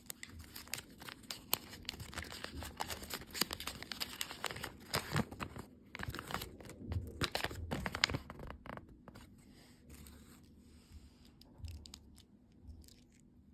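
Crinkling and tearing of plastic candy packaging, a dense run of crackles for about nine seconds that then thins to occasional light crinkles.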